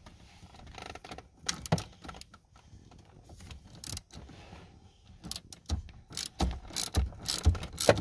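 Hand ratchet with a Torx bit socket clicking as it turns the steering-column shifter's mounting fastener loose. The clicks come in irregular runs, thicker and louder in the second half.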